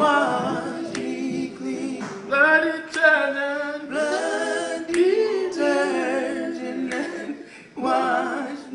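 Three men singing a gospel quartet song a cappella, voices in harmony without instruments.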